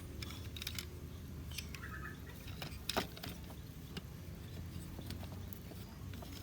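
Small plastic clicks and snaps of a transforming robot toy being folded back into a truck by hand: a few scattered clicks, the loudest about three seconds in, over a low steady hum.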